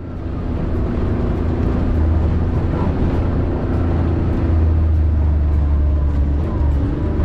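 Vehicle driving along a rough dirt road: steady low engine and tyre rumble, growing louder over the first second and then holding.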